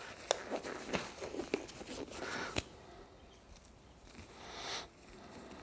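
Work gloves being pulled on: faint rustling with a scatter of small clicks, busiest in the first half.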